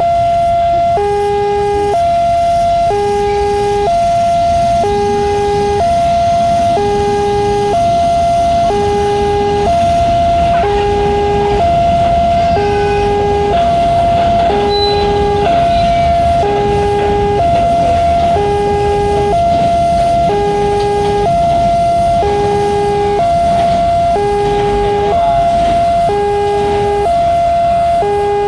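Railway level-crossing warning siren sounding a loud two-tone alarm that switches back and forth between its tones about once a second, without letting up.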